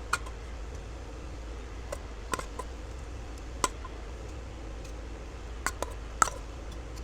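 Scattered light clicks and taps of a metal spoon against a metal steaming tray as shrimp are set down one by one, over a steady low hum.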